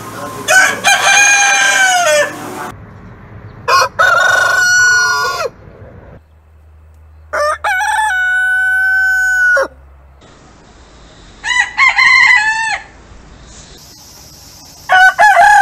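Roosters crowing one after another, about five crows from different birds, each lasting one to two seconds; the middle crow ends on a long held note.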